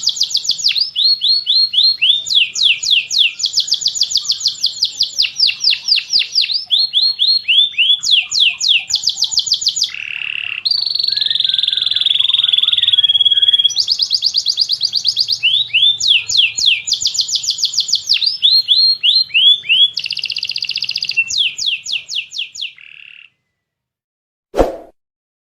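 Domestic canary singing a long, loud song of fast trills and rapidly repeated sweeping notes, with a held steady whistle in the middle; the song stops about 23 seconds in, and a single short knock follows near the end.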